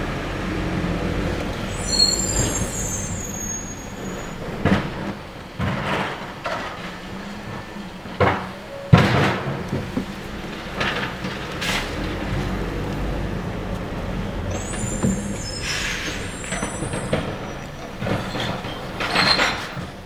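Rear-loading garbage truck running at the curb, with repeated knocks and bangs as recycling carts are tipped and emptied into its hopper. A short high-pitched squeal of the truck's brakes comes twice, about two seconds in and again near the three-quarter mark.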